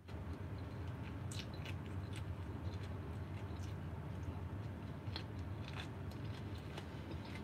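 Close-up chewing of raw cucumber slices, with a few crisp, irregular crunches over a steady low hum.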